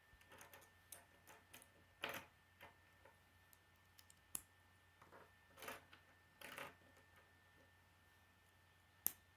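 K'nex plastic pieces being handled and snapped together by hand: faint, irregular clicks and short rustles, with one sharp click near the end.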